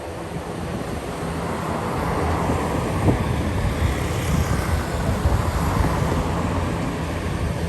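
ATR 72-600 twin turboprop engines, a steady rushing drone that swells over the first couple of seconds and then holds, with wind buffeting the microphone.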